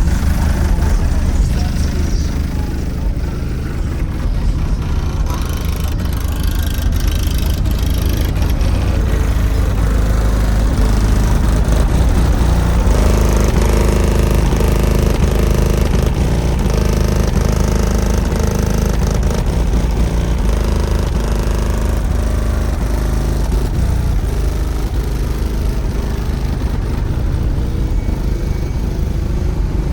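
Car-audio subwoofers playing loud, deep bass-heavy music, with the low end dominating throughout.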